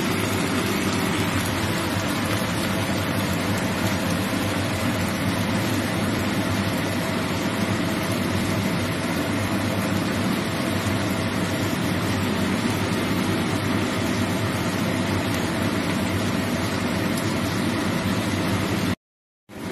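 Long beans and fried tofu puffs sizzling and bubbling in sauce in a hot pan: a steady hiss with a low hum under it. The sound cuts out for about half a second near the end.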